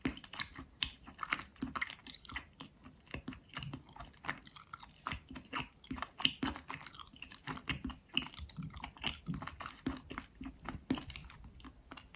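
Someone biting and chewing pieces of 'Astana' eating chalk close to the microphone: irregular sharp crunches, several a second, with softer chewing between them.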